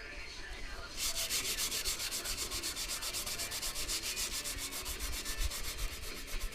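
Sanding on a car body panel: a rapid, even, rhythmic rasping that starts about a second in.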